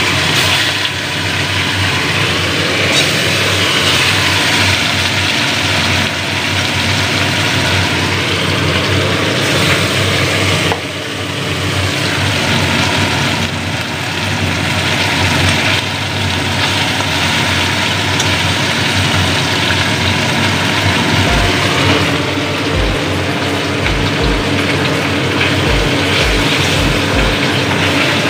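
Small shorputi (puthi) fish sizzling steadily as they fry in hot mustard oil in a wok.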